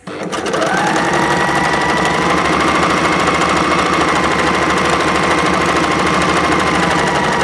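Overlocker (serger) running at speed as it sews along a fabric edge: the motor spins up over about a second, then holds a steady fast whir with a rapid, even chatter from the stitching mechanism.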